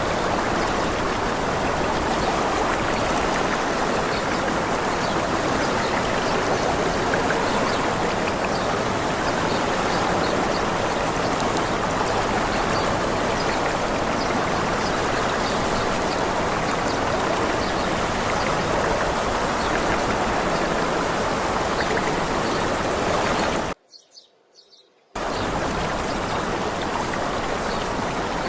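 Steady rushing of running water, a stream or small waterfall. Near the end it cuts out abruptly for about a second and a half, then resumes.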